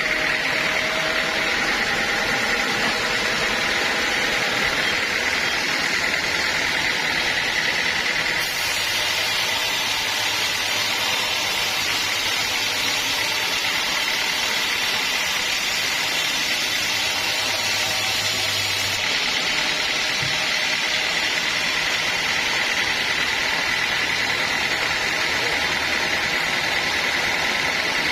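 Sawmill machinery running steadily: a constant motor drone with a steady high whine. The sound shifts from about 8 s in to about 19 s in, with more hiss and a low hum, then returns to the whine.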